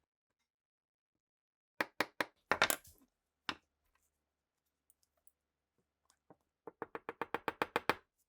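Sharp clicks and knocks of small parts being handled during an old pistol's restoration: a few separate knocks, then near the end a quick, even run of about a dozen clicks, roughly nine a second.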